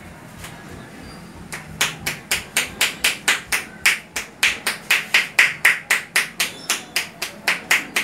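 Percussive head-massage strikes: the barber's hands, palms pressed together, chopping rapidly on the scalp, each strike a sharp hollow clap-like pop. They start about two seconds in and keep an even rhythm of about three to four strikes a second.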